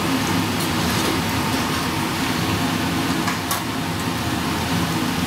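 Steady hum and hiss of running restaurant kitchen equipment, with a couple of faint clicks about half a second in and again past the middle.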